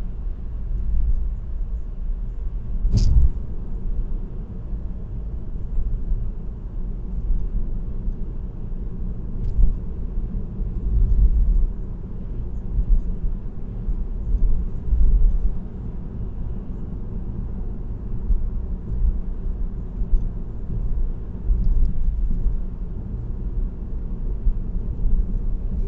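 Car cruising at steady highway speed: a low, steady rumble of road and engine noise, with a single sharp knock about three seconds in.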